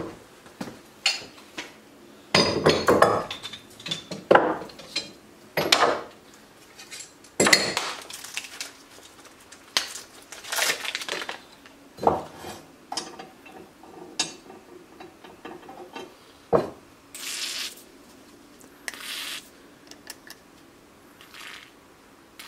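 Flat steel bars and small metal parts clanking and being set down on a wooden workbench, a string of separate knocks and clinks. Near the end, two short hisses from an aerosol spray can.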